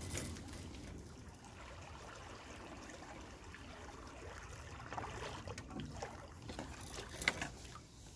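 A hooked Israeli carp splashing and thrashing at the water's surface against the pole rod's line. There are a few sharper splashes, the loudest about seven seconds in.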